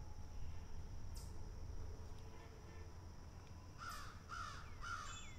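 A crow cawing three times, about half a second apart, near the end, over a steady low rumble. A thin falling call from another bird comes right at the end.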